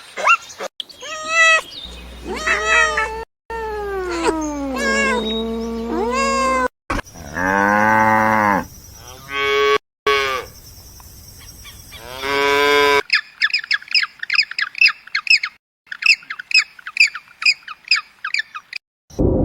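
A run of separate farm-animal calls cut together: meow-like sliding calls and long, falling cow moos over the first thirteen seconds, then rapid, high, repeated chirping.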